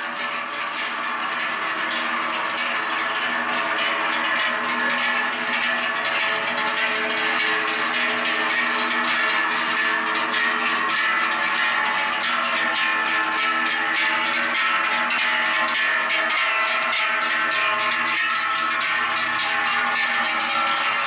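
Many large cowbells (toupins) hung on the necks of walking cows, clanging together continuously in a dense, overlapping jangle of ringing tones. The sound swells over the first few seconds, then holds steady.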